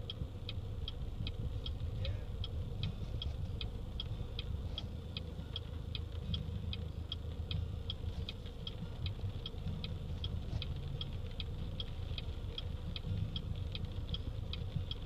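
Car turn signal clicking steadily, about two and a half clicks a second, over a low steady rumble inside the stopped car.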